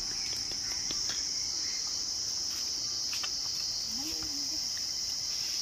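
Steady, high-pitched buzzing drone of insects in the forest canopy, unbroken throughout, with a few faint crackles of dry leaf litter underfoot.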